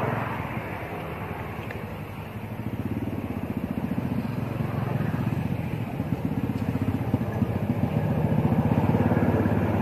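An engine running steadily, with a fast, even low pulsing that grows louder toward the end.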